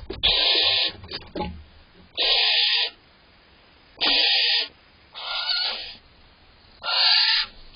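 Female barn owl giving harsh, hissing snore calls, five in a row about one and a half seconds apart, each about half a second long. This is the food-begging snore of a female barn owl waiting for the male to bring prey.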